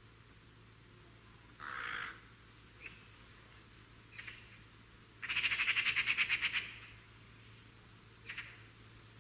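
A bird calling: one harsh call, a few short chirps, then a loud, fast rattling chatter of about a dozen notes lasting over a second, and one more short call near the end.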